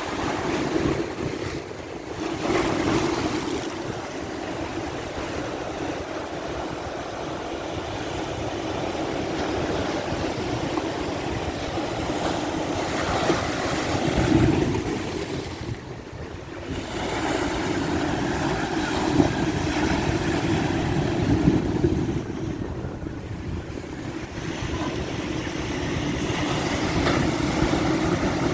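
Ocean surf at high tide: waves breaking and washing in, the rush swelling and easing every few seconds, with wind buffeting the microphone.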